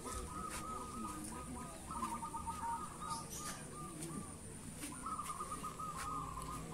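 Zebra doves (perkutut) cooing from contest cages: rippling, trilled coo phrases that repeat in bouts of a second or so, with short gaps between.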